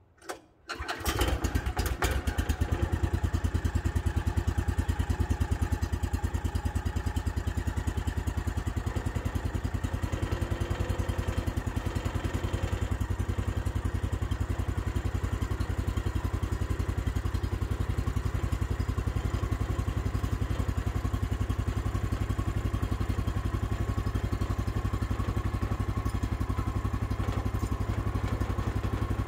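A Woodland Mills HM126 sawmill's 14-horsepower gas engine is pull-started by hand from cold. It catches about a second in and then runs steadily with a fast, even firing pulse.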